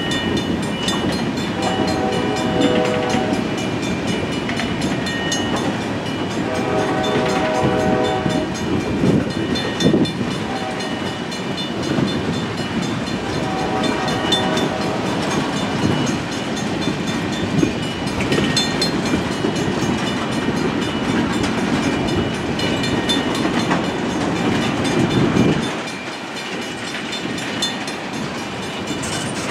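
Freight train of tank cars rolling past with a steady wheel rumble and clacking over the rail joints. In the first half a distant locomotive horn sounds the grade-crossing signal: two long blasts, a short one, then a long one.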